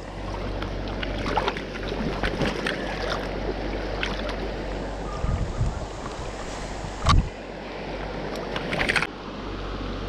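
Shallow mountain stream rushing steadily over rocks, with small splashes and handling knocks close by and a single loud thump about seven seconds in.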